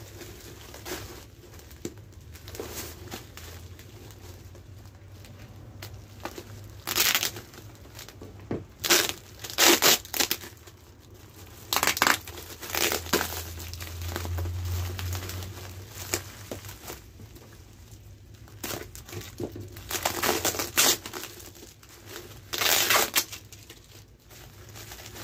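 Clear polythene bags and cling-film wrapping crinkling and rustling as the food packages are handled, in several separate loud bursts.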